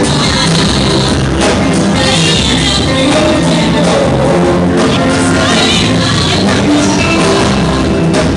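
Loud, upbeat live gospel music: a band with singing.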